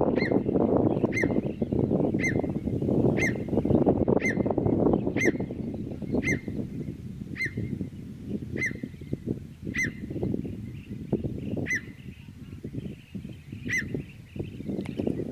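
A bird repeating a short, sharp call about once a second, the gaps lengthening slightly toward the end, over a low rustling noise that is heaviest in the first half.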